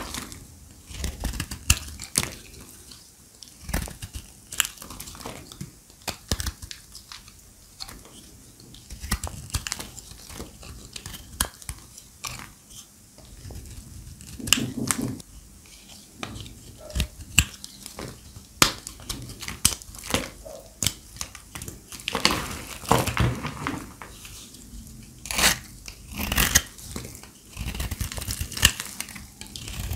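Dry, brittle glam soap being cut, crunching and crackling in a steady run of irregular sharp clicks, with louder stretches of crunching about halfway and again in the last third.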